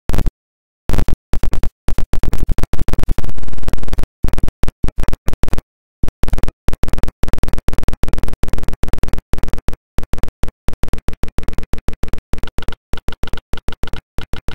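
Loud stuttering digital glitch from a broken livestream feed: harsh bursts of noise cut on and off with dead gaps between, irregular at first, then settling into an even stutter of about five pulses a second.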